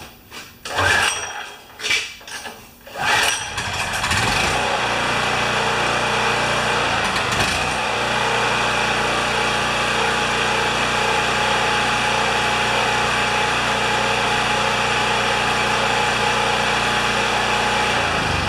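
Champion 3000-watt portable generator's single-cylinder four-stroke engine pull-started with its recoil starter: a few pull strokes, then it catches about four seconds in and runs steadily. It shuts off near the end.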